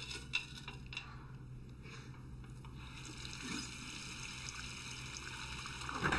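A toilet flushing behind a stall door: a rushing water hiss that builds over the last few seconds, after a few faint clicks near the start.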